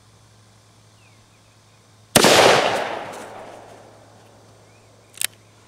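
A single gunshot from a Ruger Vaquero single-action revolver in .45 Long Colt about two seconds in, its report dying away over the next second and a half. Near the end comes a short sharp click of the hammer being thumbed back for the next shot.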